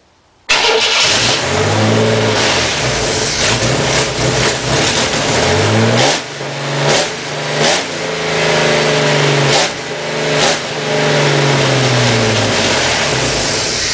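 Toyota 4Runner engine starting about half a second in and then revved up and down several times, rising and falling in pitch, before it stops at the end.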